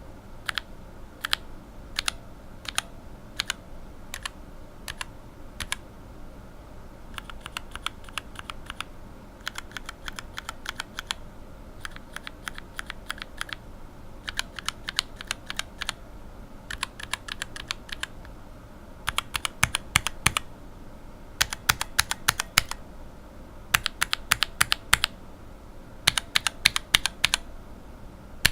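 Unlubed linear mechanical keyboard switches, with Cherry retooled bottom housings and Revo White stems and springs, being pressed and released: separate single keystrokes for the first several seconds, then runs of fast repeated presses.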